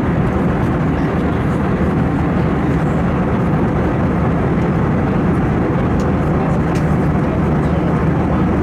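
Steady cabin noise of an Airbus A321 in flight: an even, low rush of air and engine that holds at one level throughout.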